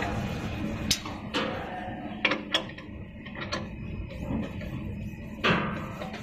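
A handful of sharp clicks and knocks as a UV curing lamp tube and its end fittings are handled inside the metal reflector housing of a screen printing machine's UV unit, the loudest about five seconds in, over a steady low hum.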